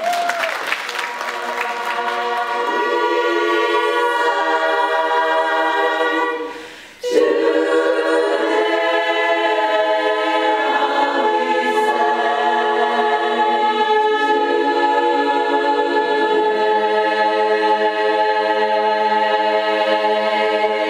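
Women's a cappella choir singing held chords in harmony. The sound drops away briefly about six and a half seconds in, and the singing resumes abruptly a moment later.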